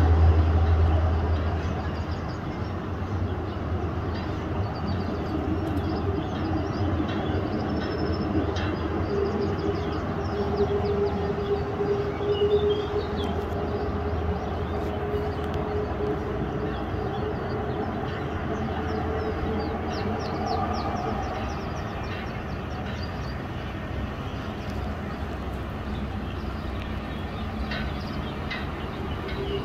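Boeing KC-135R Stratotanker's four CFM56 (F108) turbofans running at taxi power. It is a steady low rumble with a jet whine, loudest in the first couple of seconds.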